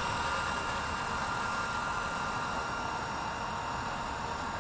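Blade 230S V2 electric RC helicopter in flight: a steady high whine from its motor and rotors over an even hiss.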